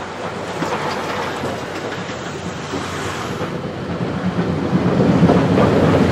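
C58 steam locomotive and its train of coaches approaching and running onto a steel girder bridge, the running noise of wheels on rail growing steadily louder as it nears.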